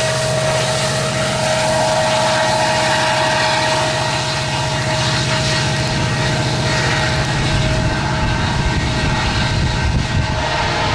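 A train rolling past: a steady, loud rumble of wheels on rail with a steady ringing tone and a low hum that fade about eight seconds in.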